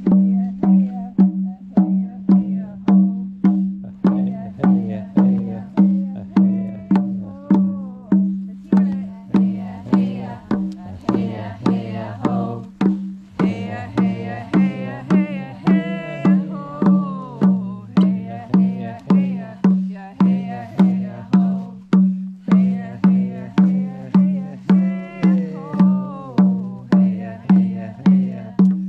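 A chant sung over a steady drum beat of a little under two strokes a second, with a low drone held underneath. It is a simple call-along chant that the group is invited to sing with.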